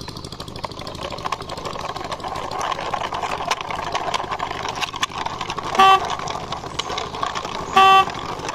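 A steady engine-like running noise as a toy quad bike is driven along by hand, with two short, even-pitched horn beeps about six and eight seconds in.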